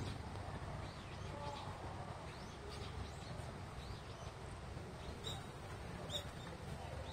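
Faint outdoor ambience: a steady low rumble with scattered short, high chirps, most around two to three seconds in and a pair near the end.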